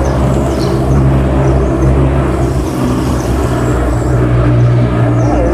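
A loud, steady low engine drone that holds one pitch throughout.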